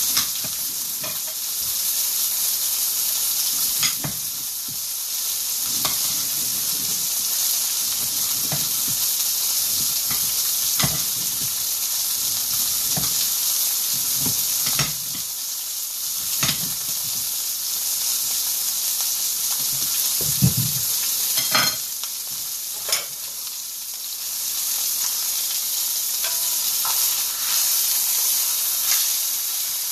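Pot roast searing in a cast-iron skillet, sizzling steadily with scattered pops and crackles.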